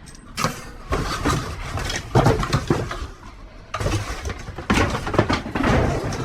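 Rummaging through cardboard boxes and loose equipment in a dumpster: irregular scraping and rustling of cardboard, with light clinks and clatters of plastic and metal.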